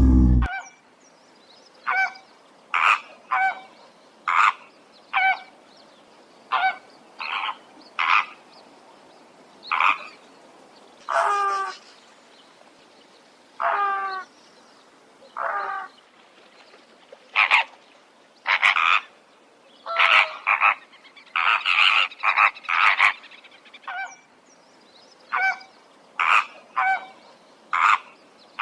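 A series of about twenty short, pitched animal calls, croaking or honking, coming singly and in quick runs at irregular gaps. A loud roar cuts off about half a second in.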